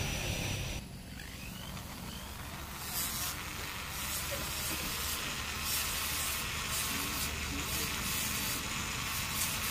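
Small handheld rotary tool running steadily, a fine carving bit and then a small sanding disc grinding a tiny wood carving. The sound changes abruptly about a second in.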